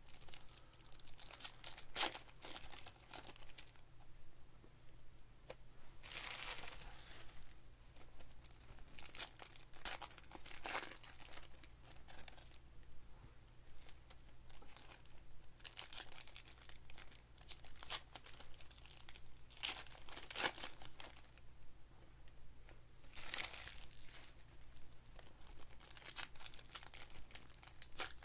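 Foil trading-card pack wrappers crinkling and tearing as packs of Panini Select basketball cards are opened by hand, in irregular bursts with short pauses between, over a steady low hum.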